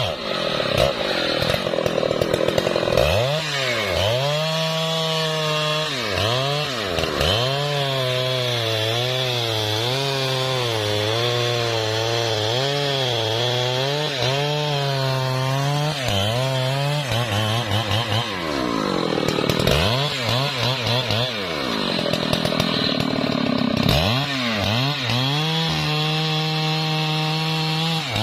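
Husqvarna 3120 XP two-stroke chainsaw cutting through trembesi wood. The engine pitch sags and recovers again and again as the chain loads up in the cut, climbing to high revs near the start and again about two-thirds of the way through.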